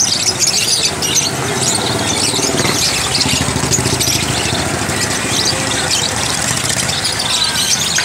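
A flock of caged budgerigars chattering, with many quick, high chirps overlapping throughout. An engine runs underneath as a low rumble, strongest in the middle.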